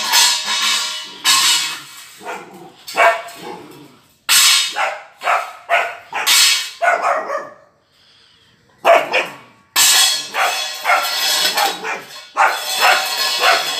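Puppy barking over and over in short, high barks, with a short break about halfway.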